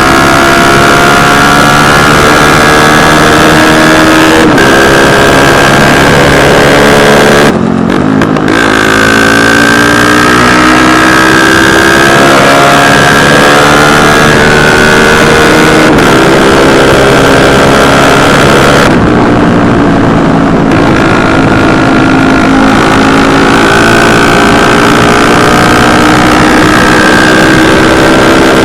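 Motorcycle engine under hard acceleration at full throttle, loud and close, its pitch rising again and again as it pulls through the gears. There are brief breaks about eight and twenty seconds in.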